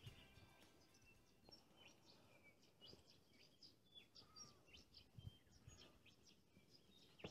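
Near silence with faint bird chirps and short calls scattered throughout.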